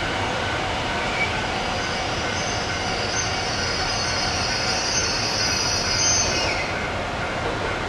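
Shinano Railway 115 series electric train rolling slowly around a curve, its wheels squealing high on the rails from about two seconds in for some four seconds over a steady rumble of the running gear.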